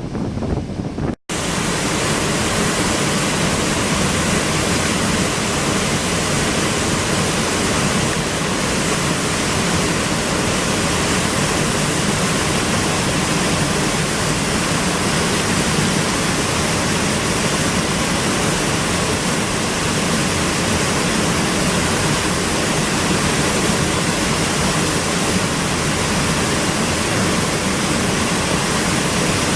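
A waterfall's water rushing, a loud steady hiss with no let-up. It breaks off for a moment about a second in, then carries on as before.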